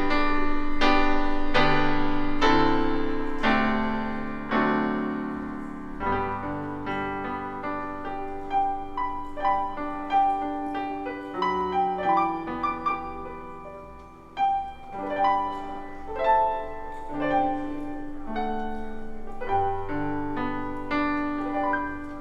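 Piano music: full chords at first, then from about six seconds in a softer, slower line of single notes over held bass chords.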